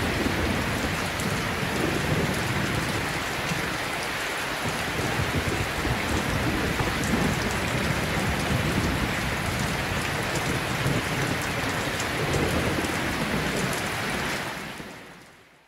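Steady rain with low rumbles of thunder, a rain-and-thunderstorm ambience track laid under the screen recording, fading out near the end.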